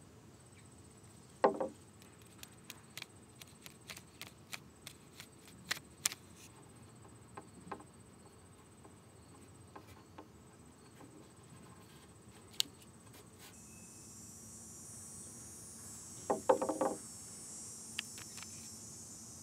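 Quiet hand work on a veneered wood surface: scattered light clicks and taps of fingertips and a folded paper and card against the veneer while pressing sanding dust into super glue in small chips, with two louder brief paper rustles, about a second and a half in and near the end. Behind it a faint steady high whine, then a steady high hiss from about two-thirds of the way through.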